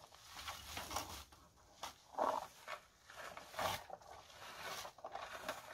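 Hand-held berry picker raking through bilberry bushes: irregular rasping, rustling strokes, roughly one a second, as its tines comb through the twigs and leaves and strip the berries.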